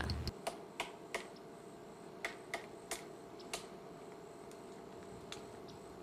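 Faint steady room hum, broken by about eight sharp, irregularly spaced clicks, most of them in the first few seconds.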